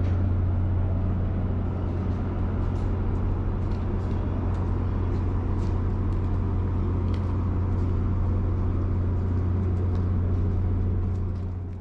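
A large engine idling with a steady low hum, with a few faint clicks over it; the hum drops away near the end.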